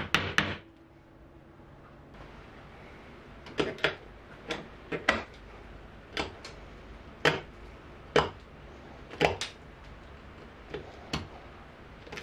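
Sharp single taps of a mallet on a bench chisel, chopping out dovetail waste in cherry: about a dozen separate strikes, roughly one a second, after a short pause near the start.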